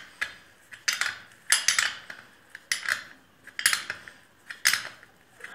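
Ratchet wrench working a 13 or 14 mm nut on a mower engine: a short burst of sharp metallic clicks on each stroke, about once a second.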